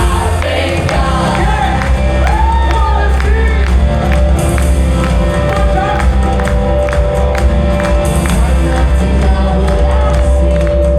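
Live gospel worship band music with singing over a steady drum beat and heavy bass; a sustained note is held from about the middle.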